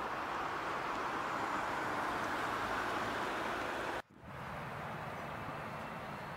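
Steady rushing noise of distant jet aircraft at an airport, with no clear tone. It cuts off abruptly about four seconds in, then a quieter rush with a low hum carries on.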